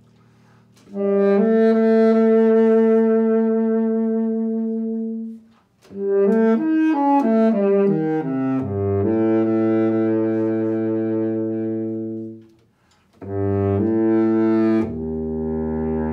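Baritone saxophone playing a slow solo phrase. A long held note comes first, then a quick descending run into a sustained low note, then a short note leading into another low held note, with brief breaths between the phrases.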